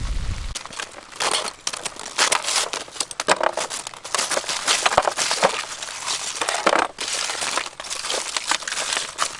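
Baked clay crust cracking and crumbling under a knife, with aluminium foil crinkling as it is peeled back by hand: an irregular run of crunches and crackles.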